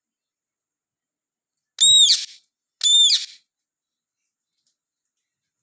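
Ringneck parrot giving two short, high, loud whistled calls about a second apart, each rising and then falling in pitch.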